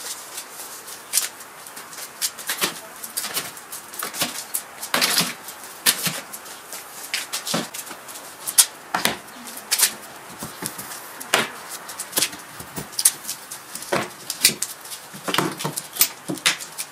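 Irregular wooden knocks and clatter as a homemade plywood folding table is folded up and its frame is moved about.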